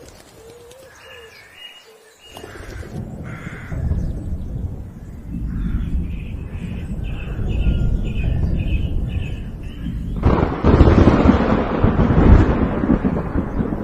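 Crows cawing repeatedly, a quick run of calls over a low rumble, then a loud low rumble sets in about ten seconds in.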